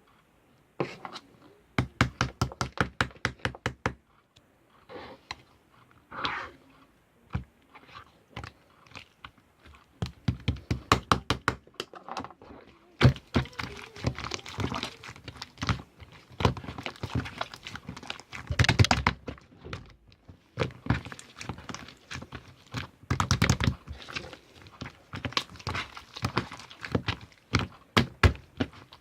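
Slime being squished and pressed by hand, making runs of quick clicks and pops, several a second, in bursts with short pauses between.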